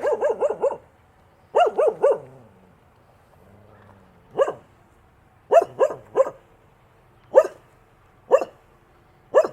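A dog barking in bursts: a quick run of about five barks at the start, then a group of three, and then single barks and short runs of three spaced a second or so apart.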